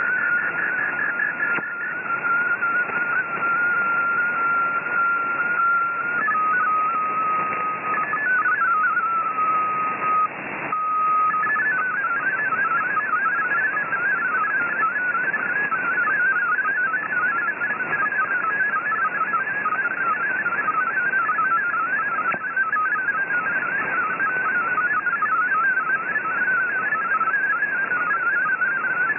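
Shortwave digital-mode broadcast received over static hiss. First a steady single tone that steps down in pitch, the data of an MFSK picture. Then, from about 12 seconds in, the rapid warbling tones of MFSK32 text data.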